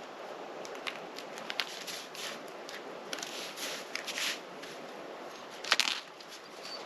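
Footsteps crunching on the forest floor: an irregular run of short crunches, with one louder crunch near the end.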